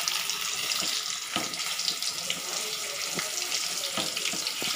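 Hot coconut oil sizzling steadily in a wok as chicken fries, a continuous hiss with faint scattered crackles.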